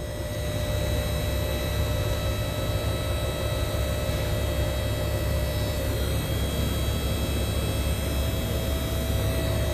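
Electric-hydraulic power unit of a four-post car lift running, raising a loaded lift. It starts at the very beginning and settles into a steady hum with a faint whine.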